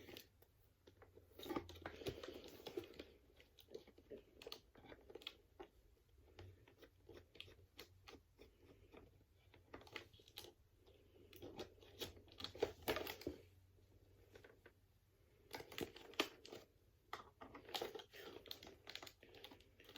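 Faint, irregular clicks and scraping of a screwdriver against the small screws of a plastic toy's battery cover, with the toy being handled. The screwdriver does not fit the screws.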